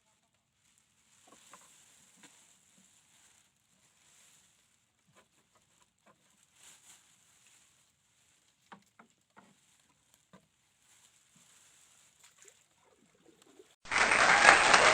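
Very faint scattered clicks and taps, then about 14 seconds in a loud, steady rush of heavy rain starts abruptly.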